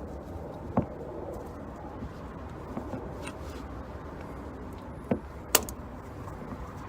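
A handful of sharp metallic clicks and clanks, the loudest about five and a half seconds in: an oil filter wrench being worked around the engine's oil filter to loosen it.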